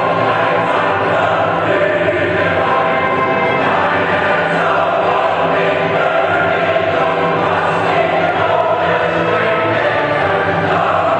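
Choral music with a choir singing held notes.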